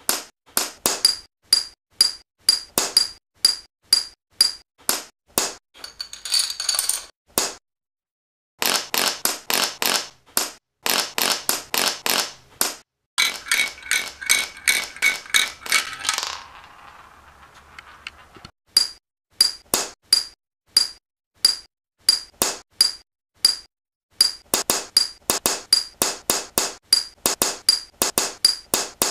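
Chains of small dominoes of various materials toppling one into the next, a quick, even run of clacks at about three a second, many with a bright ringing ping. About eight seconds in they stop briefly, and near the middle a denser cascade trails off into a fading rattle before the clacking picks up again.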